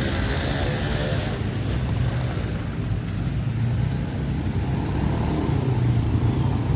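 Street traffic: motor vehicle engines running, a steady low drone.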